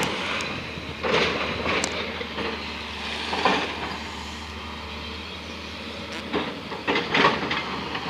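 Excavator working: a steady low engine hum with several loud clanking, scraping bursts of metal scattered through it.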